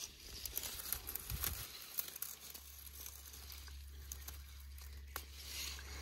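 Rustling and crackling of strawberry plant leaves and stems being handled, with many small scattered clicks, as strawberries are picked by hand.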